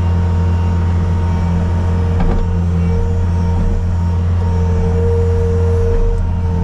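Diesel engine of a Bobcat skid-steer loader running steadily at a constant speed, with a steady high whine over the engine drone.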